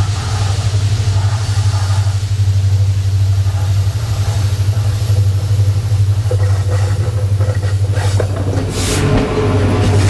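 Diesel locomotive of a goods train approaching along the track with a steady low engine drone. Near the end it becomes a loud rush of noise as the locomotive reaches the microphone, heard from between the rails.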